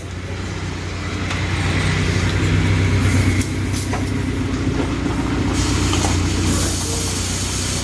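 A steady low machine hum, joined by a hiss that spreads higher about five and a half seconds in.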